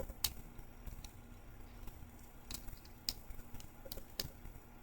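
Lock pick working the pin stack of an Abus 80TI/50 padlock under tension: a few faint, sharp metallic clicks and ticks of the pick against the pins.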